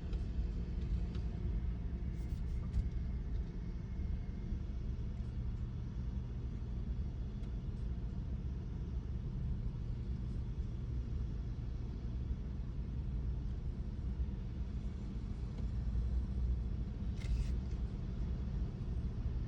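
Car engine running, heard from inside the cabin as a steady low rumble, with a faint click about three seconds in and another near the end.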